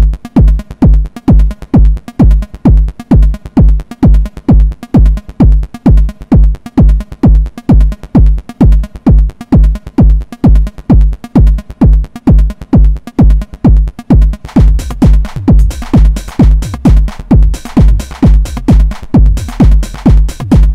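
Techno played live on a Eurorack modular synthesizer: a steady four-on-the-floor kick drum at about two beats a second under a pulsing bass line. About fourteen seconds in, a bright hissing high layer joins the pattern.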